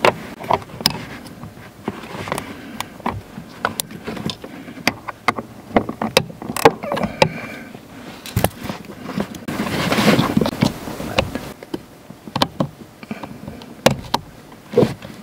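Irregular clicks, knocks and rattles of hands working at a heater blower motor under a car's dashboard as its wiring harness plug is handled and pushed onto the motor, with a busier stretch of rattling about two-thirds of the way through.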